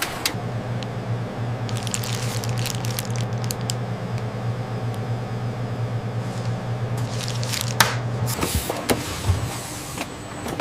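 Factory machinery: a steady low hum that stops about eight seconds in, with two spells of clicking and rattling, one around two to three seconds in and one just before the hum stops.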